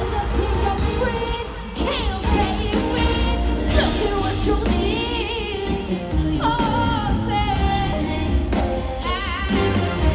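Live pop concert music: a woman singing wavering, sliding notes over a heavy bass line.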